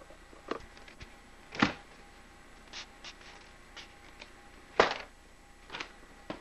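Folded-paper popper whipped down through the air: two loud, sharp paper cracks about three seconds apart, with a few softer snaps and flicks of paper around them.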